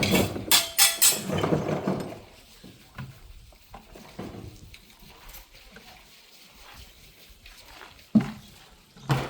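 Hard objects clinking and clattering, busiest and loudest in the first two seconds, then scattered lighter knocks, with one sharp knock near the end.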